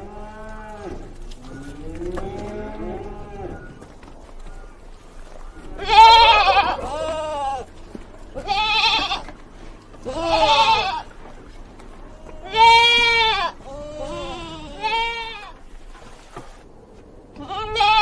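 Bleating from a sheep or goat–type animal, a series of wavering calls: fainter, lower ones in the first few seconds, then about eight louder bleats spaced one to two seconds apart.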